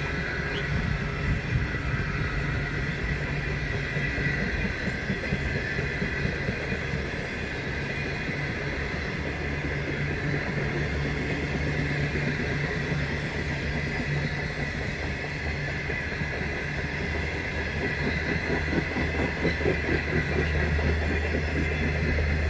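The Ghan passenger train's carriages rolling past on the rails: a steady rolling noise of wheels on track with a low rumble and a faint high ring.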